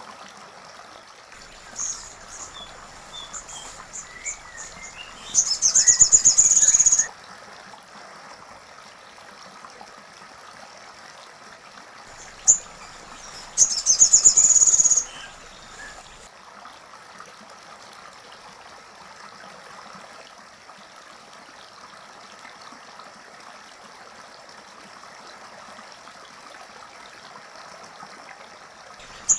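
Woodpecker calling: two loud, rapid high-pitched trills of about a second and a half each, roughly eight seconds apart, with a few short softer chirps before the first and a steady hiss underneath.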